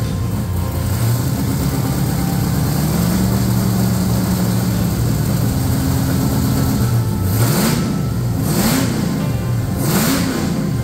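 LS V8 running on a bone-stock ECM tune. Its speed steps up slightly about three seconds in, then it is revved briefly three times in the second half, each rev rising and falling back.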